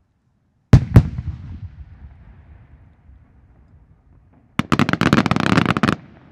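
Two aerial firework shells bursting with loud bangs, a quarter of a second apart, their echo rumbling away over the next couple of seconds. Near the end a sharp report sets off a rapid volley of many bursts crackling for about a second and a half, which cuts off suddenly.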